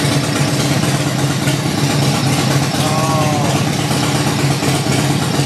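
Racing motorcycle engine idling steadily, run as the bike is cleaned out for winter.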